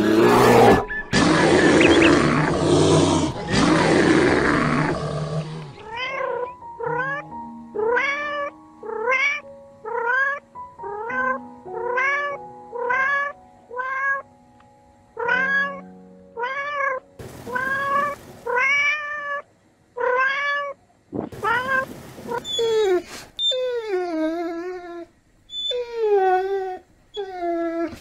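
A loud, rough cry for the first five seconds, then a cat meowing over and over, about once a second, each meow rising then falling in pitch. Later the meows grow longer and slide downward, with a few harsher bursts between them, over steady background tones.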